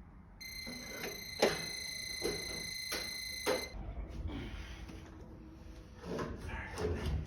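A steady high-pitched electronic tone, like an alarm or buzzer, sounds for about three seconds and then cuts off, with several knocks over it. Scattered knocks and clatter follow.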